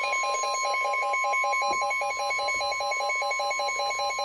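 NOAA Weather Radio warning alarm: a steady, unbroken high tone of about 1050 Hz, the signal that an urgent warning (here a tornado warning) is about to be read. A lower tone pulses rapidly on and off beneath it.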